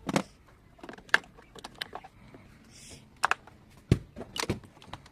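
Irregular light clicks and knocks, about a dozen, from hands handling and working on a children's ride-on toy bike.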